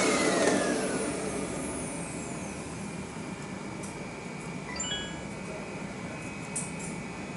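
Handheld vacuum cleaner switched off and spinning down, its motor whine falling in pitch and fading over the first two seconds or so, leaving a low steady hum. A few short high beeps come about five seconds in, and a light click shortly after.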